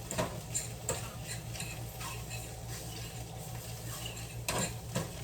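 Utensil stirring and scraping scrambled eggs in a frying pan, with light clinks of metal on the pan over a faint sizzle and a steady low hum. There is a sharper clink near the end.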